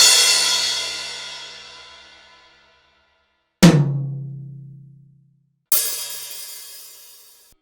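Dry drum-kit one-shot samples played one at a time. A bright cymbal hit rings down, then a low-pitched drum hit about three and a half seconds in fades over two seconds. Another bright cymbal hit near the end stops short.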